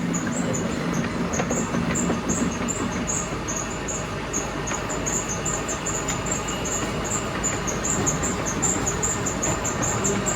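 Machinery running: a steady, loud mechanical din with a rapid high chirping repeating through it.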